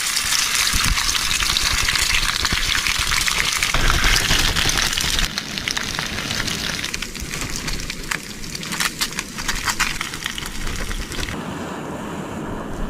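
Food sizzling and crackling as it cooks on a butane camp stove. The hiss is strongest for the first five seconds or so, then eases, with scattered sharp crackles.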